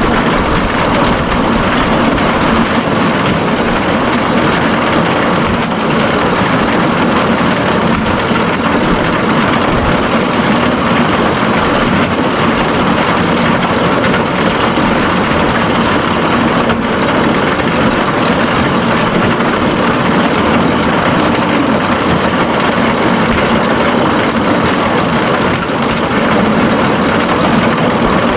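Straw bale elevator running with a steady mechanical drone while square bales are unloaded.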